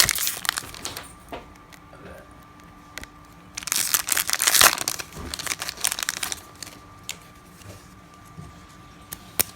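A 1999 Fleer Ultra baseball card pack being torn open, its wrapper crinkling in two bursts, one in the first second and a longer, louder one around four seconds in, with a few light clicks between.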